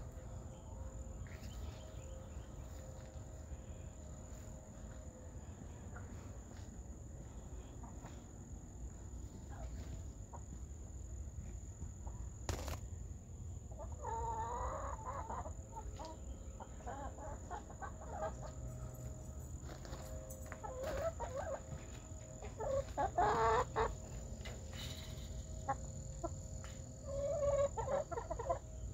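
Hens clucking in short, scattered bouts, which begin about halfway through and come several times. The loudest runs fall about two-thirds of the way through and again near the end.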